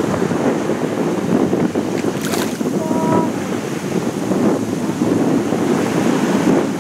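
Strong wind buffeting the microphone over small waves lapping at the shoreline. A short faint pitched tone sounds about three seconds in.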